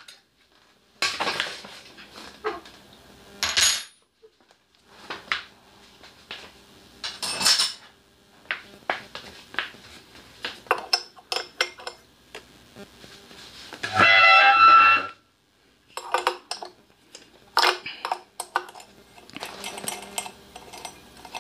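Loose metal parts and hand tools clinking and clattering on a small portable generator as it is dismantled, in irregular knocks and short rattles. About two-thirds of the way through comes a louder metallic clatter with a ringing edge, lasting about a second.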